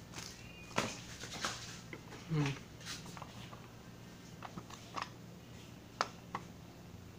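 Clear plastic cassette case handled and turned over in the hand: scattered light clicks and taps of the plastic, with a brief low pitched sound about two and a half seconds in and a faint steady hum underneath.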